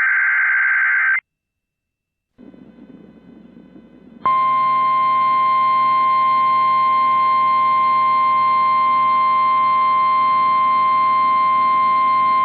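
A harsh warbling EAS digital data burst for about the first second, then a short silence and a low radio hiss. About four seconds in, the steady NOAA Weather Radio 1050 Hz warning alarm tone starts and holds, announcing a new warning broadcast.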